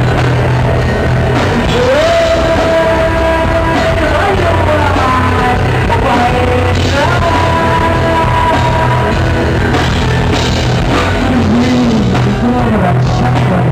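Rock band playing live and loud, with a singer's held, gliding notes over the band.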